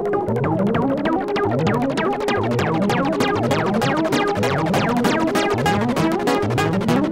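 A Eurorack modular synthesizer plays a fast quantized pitch sequence: short plucky notes in rising stepped runs that repeat about once a second. Several oscillators play copies of the sequence shifted against one another, as MultiMod replicates and offsets the pitch CV.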